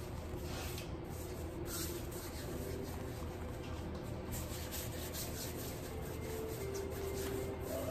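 Hands rolling a rope of pretzel dough back and forth on a countertop: a steady rubbing of palms and dough against the hard surface.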